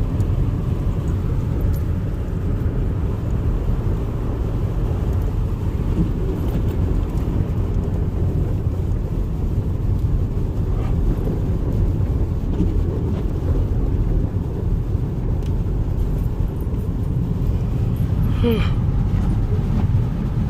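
Steady road noise inside a moving car's cabin: a continuous low rumble of tyres and engine at highway driving speed.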